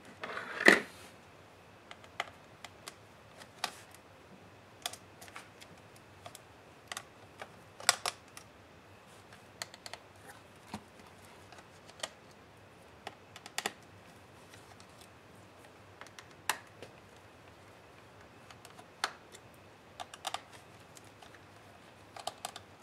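Fingers handling a laptop-tablet's opened plastic and metal chassis and battery pack, making scattered light clicks and taps at irregular intervals. A longer, louder noise comes about a second in.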